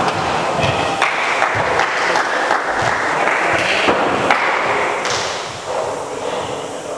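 Indoor volleyball rally: repeated thuds of the ball being hit and of players moving on the hardwood court, with voices calling, in a reverberant hall. It grows quieter over the last second or so.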